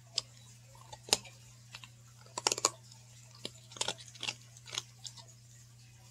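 A dog chewing a hard, frosted dog cookie. The crunches come in short irregular bursts, the loudest quick run about two and a half seconds in.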